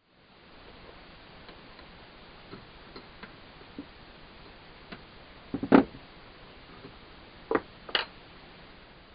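Scattered light clicks over a steady faint hiss, with a cluster of louder knocks about five and a half seconds in and two more knocks near the end.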